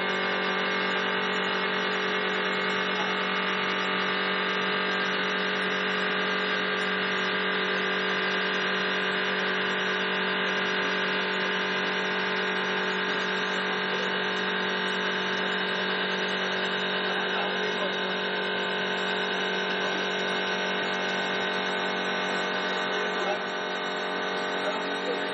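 Multi-function 4-axis CNC wood lathe running while it turns a wooden chair-leg blank, its motors and spindle giving a steady hum of many fixed tones.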